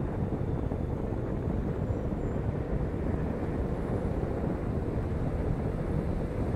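Steady rush of wind and tyre noise from a car driving at highway speed, picked up outside the car on its rear deck. A low, even rumble with no engine note or other events standing out.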